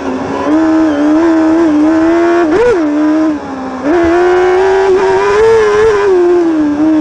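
Crosskart engine running hard at high revs right beside its exhaust silencer, the pitch rising and falling as the driver lifts off and gets back on the throttle. About two and a half seconds in the revs jump up sharply and fall back, then sag before climbing again about four seconds in.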